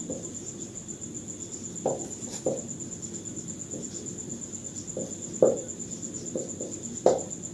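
Whiteboard marker writing on a whiteboard in a series of short strokes, the loudest about two, five and a half and seven seconds in. A steady, high-pitched pulsing whine runs underneath.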